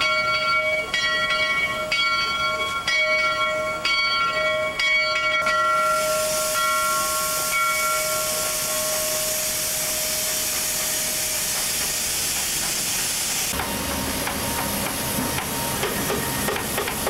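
A bell rings about once a second for the first five seconds or so, its tone dying away. Then steam hisses loudly from the steam locomotive for about seven seconds and cuts off sharply, giving way to the low rumble of the train rolling.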